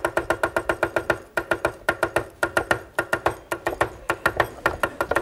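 Two knives, one a Chinese cleaver, chopping green onions fast on wooden cutting boards: an even run of sharp, hollow, pitched knocks at about six or seven a second, breaking off briefly twice.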